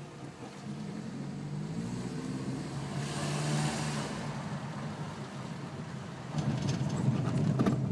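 Car engine heard from inside the cabin, revs rising as it pulls up a steep street. About six seconds in it gets louder and rougher as the tyres roll onto cobblestones and rumble and rattle over them.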